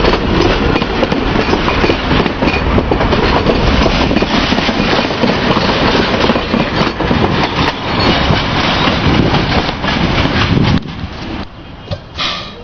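A heritage passenger train's cars rolling past close by, steel wheels running loud over the rails. The noise drops off suddenly about eleven seconds in as the last wagon clears, leaving a few faint knocks.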